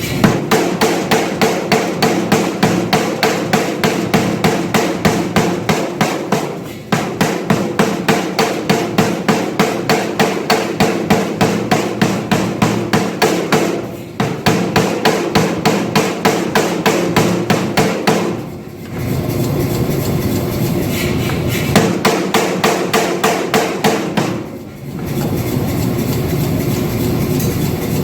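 Power hammer striking hot steel in fast, even runs of several blows a second as a knife blade is drawn out, with brief stops about seven and fourteen seconds in. Past the middle the blows give way to a steadier mechanical running sound.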